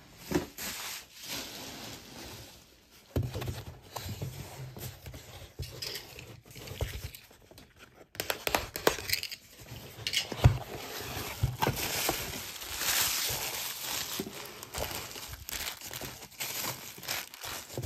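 Wrapping being handled and unwrapped, with irregular rustling and crinkling and many small clicks and knocks of items being picked up and set down.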